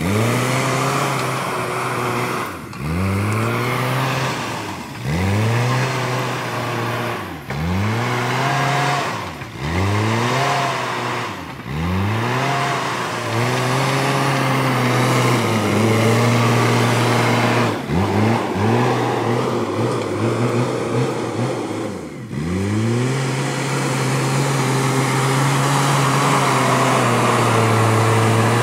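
JCB backhoe loader's diesel engine working as the machine pushes soil with its front bucket. The engine note drops and revs back up every two to three seconds, then holds steady near the end.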